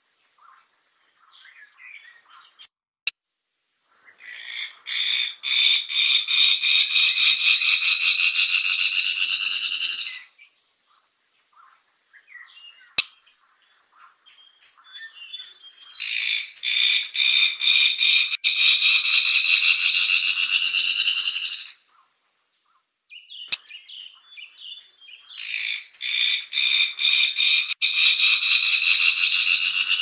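Fire-tufted barbet calling: three bouts, each opening with a few scattered short notes that run into a long, loud buzzing trill of several seconds that rises slightly in pitch.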